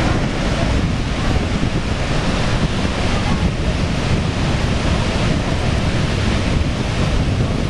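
Steady rushing noise of the Horseshoe Falls at Niagara and the churning water below, with wind buffeting the microphone.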